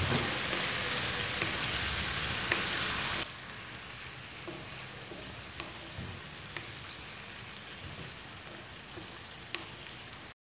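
Chicken and ginger-garlic-green chilli paste sizzling in oil in a wok, with light scrapes and taps of a wooden spatula stirring it. The sizzle drops suddenly to a quieter level about three seconds in.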